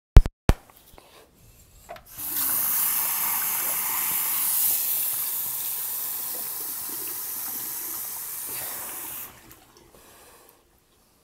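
Water running from a tap into a sink for about seven seconds, a steady hiss that eases slightly and then stops suddenly. Two sharp knocks come just before it.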